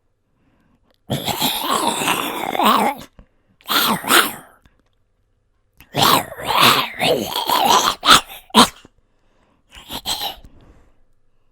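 A man's voice making zombie growls and grunts: four rough, raspy outbursts separated by silences, the longest near the middle breaking into short harsh stabs, the last one weaker and trailing off.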